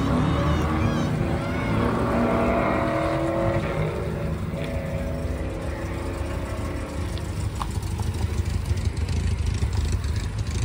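Cars, among them an MGB roadster, driving slowly past one after another with their engines running; in the first few seconds one engine's pitch rises as it pulls away, and later a low rumble with short clicks comes through as the next car rolls by.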